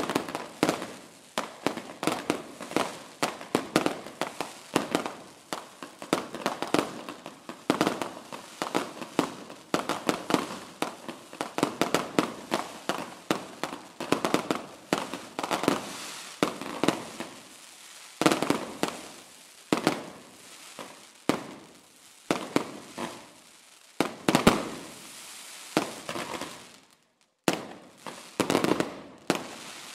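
Fireworks display without music: a rapid, dense barrage of bangs and crackles that thins after about 18 seconds into separate, louder booms, each trailing off in echo, with only a few scattered bangs near the end.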